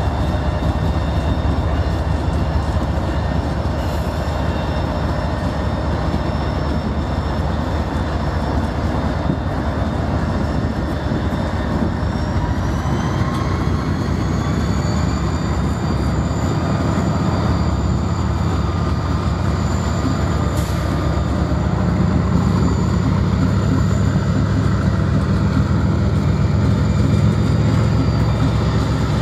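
Several Canadian Pacific diesel-electric locomotives passing close by, engines running and wheels rolling on the rails. A high whine rises in pitch about halfway through, and the low engine rumble grows louder near the end as more locomotives go by.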